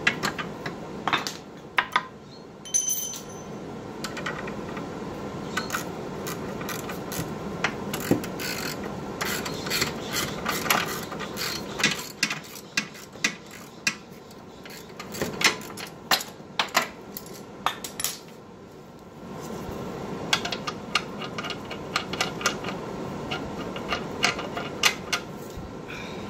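Hand tools clinking and clicking against metal parts under a car, in irregular sharp taps and short clusters, over a steady background hum.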